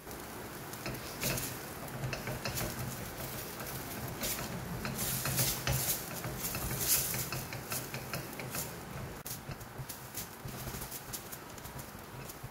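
Wooden spatula stirring and scraping thick rice rava dough in a stainless steel pan, a quick run of scrapes and taps against the metal, while the mixture absorbs its water and thickens into a dough. A steady low hum runs underneath.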